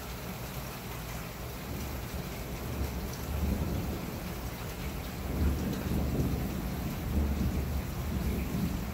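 Steady rain falling, with a low rumble of thunder that builds about three seconds in and rolls on, loudest in the second half.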